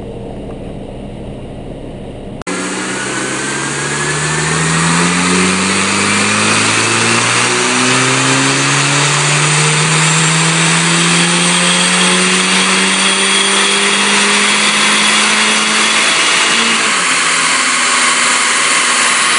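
2008 Audi A4 2.0T FSI turbocharged four-cylinder engine making a full-throttle pull on a chassis dyno, starting about two and a half seconds in. The revs climb through a few quick gear changes and then rise in one long sweep, with a high whine rising alongside. About sixteen seconds in the throttle closes and the engine note drops back, while a steady noise carries on.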